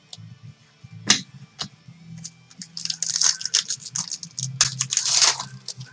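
A trading card pack wrapper crinkling and tearing open in quick crackles over a couple of seconds, after a single sharp tap about a second in.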